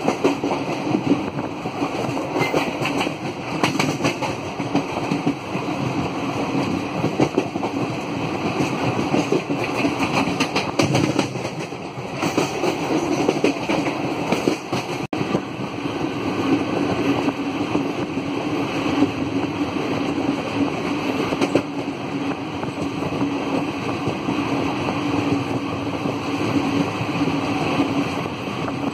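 Passenger train running at speed, heard from inside a carriage: a steady rumble of wheels on the rails with an irregular clatter over the track.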